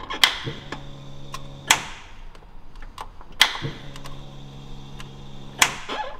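Ignition key being worked on a D16-swapped Honda Civic EG hatch: four sharp clicks, each about one and a half to two seconds apart. A steady electrical hum runs between the first and second clicks and again between the third and fourth. The starter does not crank and the engine does not fire, because no power is reaching the starter wire.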